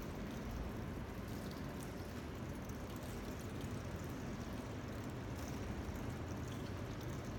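Steady low rumble and hiss of room noise, with a few faint ticks and no clear single source.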